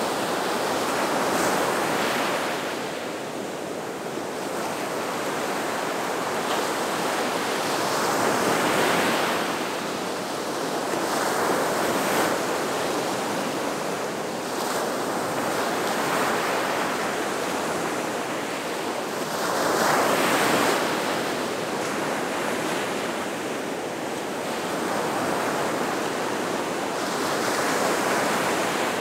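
Gulf of Mexico surf breaking on the shore: a continuous wash of waves that swells and eases every few seconds.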